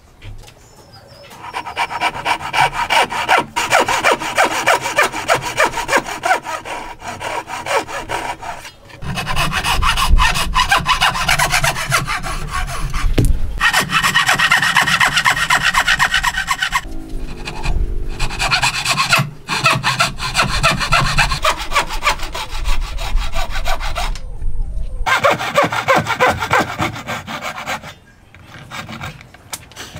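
Japanese pull saw (ryoba) cutting dovetails by hand in a wooden board, in rapid, rhythmic strokes. It comes in several bouts with short breaks between them, and the sawing stops shortly before the end.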